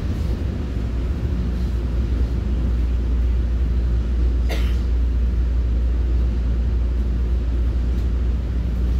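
Commuter train running, a steady low rumble heard from inside the coach, with a brief sharp noise about halfway through.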